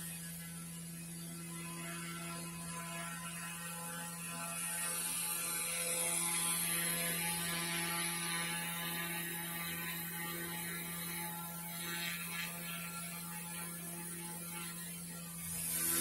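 Small hairdryer DC motor running with a quiet, steady buzzing hum.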